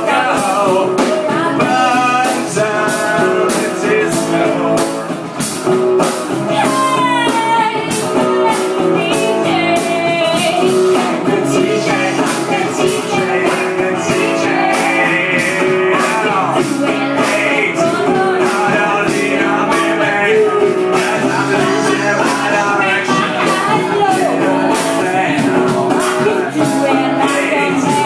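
Live rock band playing with sung vocals over guitar and a steady drum beat.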